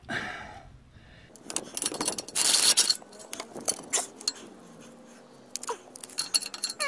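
Metal hand tools clinking and rattling as a socket extension is fitted to a ratchet, with a louder clatter about two and a half seconds in and scattered light clicks after.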